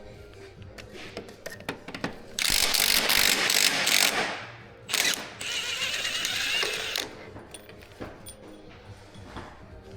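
Ratchet wrench working on bolts: two loud runs of rapid ratcheting, the first about two and a half seconds in and lasting nearly two seconds, the second about five seconds in, with scattered clicks of tools between.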